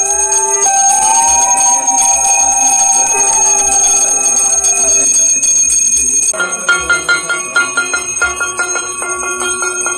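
Bells ringing with sustained tones and a pitch that slowly rises and falls. About six seconds in the sound changes abruptly to a faster, rhythmic chiming like mallet percussion.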